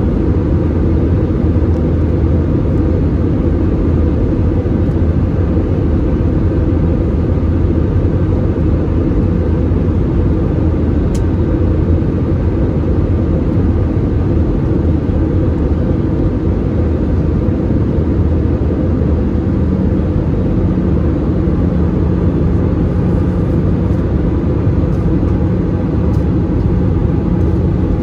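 Steady cabin noise inside an Airbus A320-216 on descent, heard from a window seat over the wing: the rumble of airflow and its CFM56 engines. A steady low hum joins about two-thirds of the way through.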